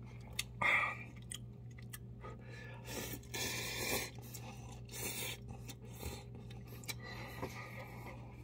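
A man slurping instant cup ramen noodles and chewing them, with a few noisy slurps around the middle and small wet clicks of chewing between them.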